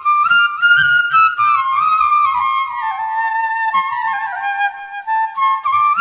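Background music: a flute plays a stepping melody that sinks lower through the middle and climbs back near the end, with soft low thumps underneath.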